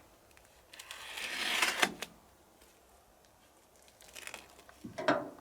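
Gear being handled: a rustling noise of about a second that ends in a click, then a few light clicks and a knock near the end.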